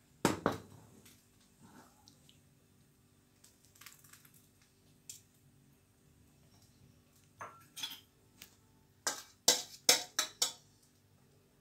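A stainless steel pot knocking and clinking against dishes while thick custard is poured out of it: one knock just after the start, then a run of sharp clinks near the end.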